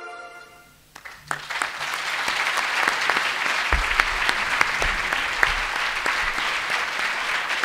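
Audience applauding steadily, the clapping starting about a second in as a short piece of music fades out.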